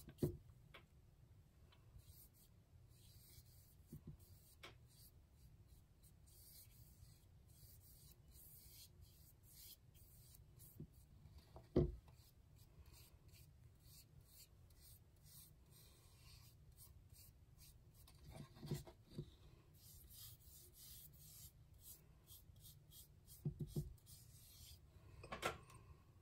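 Faint rubbing of a paintbrush laying black acrylic paint along the edges of a canvas, with a few soft knocks from handling it, the loudest about halfway through.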